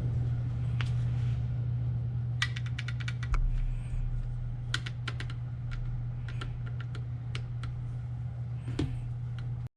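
Scattered light, sharp clicks and clinks, some in quick little clusters, over a steady low hum; the sound cuts off abruptly near the end.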